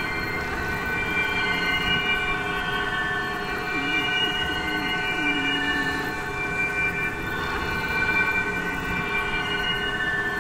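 A sustained droning chord of many steady tones held together, with a short low gliding figure about four seconds in and again about five seconds in.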